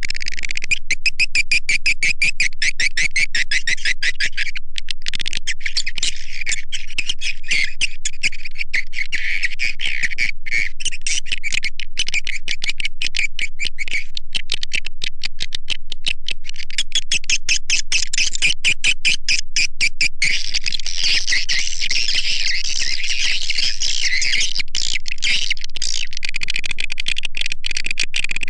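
Swiftlet call recording: a loud, continuous stream of rapid, high-pitched twittering chirps and clicks from edible-nest swiftlets. This is the lure sound used on swiftlet farms to draw birds into a nesting house.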